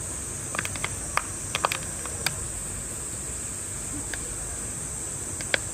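Steady high-pitched drone of insects in the background, broken by a scattering of sharp clicks and taps: a quick cluster in the first couple of seconds, then single clicks near the middle and near the end.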